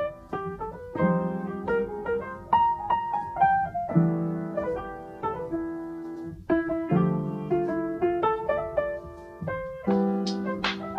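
Background piano music: a gentle melody over held chords that change about every three seconds.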